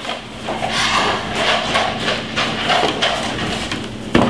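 A single heavy thump on a wooden tabletop near the end, as a child climbs up onto the table.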